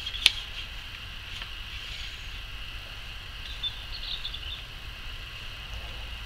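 Lakeside outdoor ambience: a steady high hiss and a low rumble, with one sharp click about a third of a second in and a few faint chirps around four seconds in.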